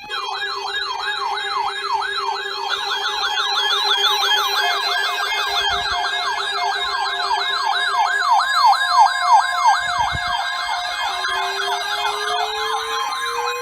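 Electronic siren yelping, its pitch sweeping rapidly up and down about four times a second, with a steady lower tone that stops about two-thirds of the way through and a slowly rising tone that starts near the end.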